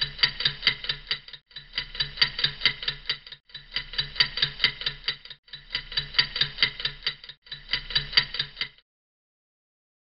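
Fast, even ticking, about five ticks a second, in five phrases of about two seconds each with short breaks between them. It stops shortly before the end.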